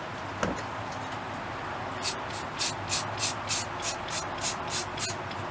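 Primer spraying in about ten quick, short hissing bursts, roughly three a second, starting about two seconds in: a light second coat of primer laid on in short passes. A single knock about half a second in.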